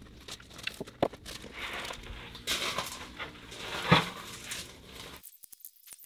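Large boards being slid down a board ramp and set on a pallet: scattered knocks and a scraping rustle, with one sharp knock about four seconds in. Just after five seconds in, this gives way to a quick run of light ticks.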